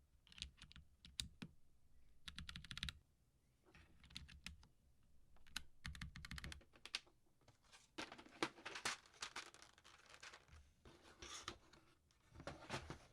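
Typing on a custom Alice-layout mechanical keyboard with Boba U4T tactile switches, a brass plate in a stacked acrylic case, and ABS Cherry-profile keycaps. The keystrokes come in irregular bursts, with a quick run about two seconds in and denser typing from about eight seconds in.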